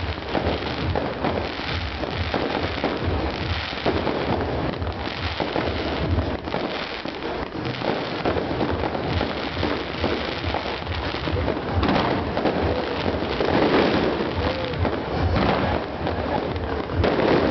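Fireworks display: a dense, continuous run of bursting shells, bangs and crackling.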